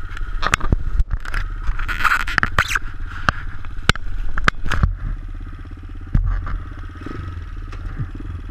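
Engine of a Bashan 250 quad running at low speed as the quad rolls along, with many sharp clicks and knocks over it.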